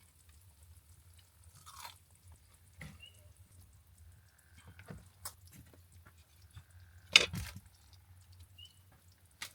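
Utensils and dishes being handled while breakfast is dished up: scattered light clicks and knocks, with one louder clatter about seven seconds in, over a faint low steady hum.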